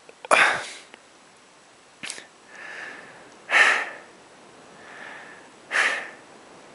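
A climber breathing hard close to the microphone at high altitude: three loud, sharp breaths a little over two seconds apart, with softer breaths between them and a brief click about two seconds in.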